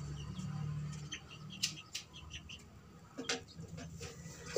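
Small birds chirping in short, scattered notes, with a low hum during the first second or so and a few sharp clicks.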